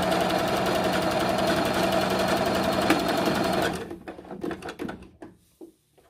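JUKI HZL-353Z domestic sewing machine stitching at full speed, a rapid, even mechanical clatter that stops abruptly about three and a half seconds in. A few light clicks and handling noises follow as the fabric is taken out from under the foot.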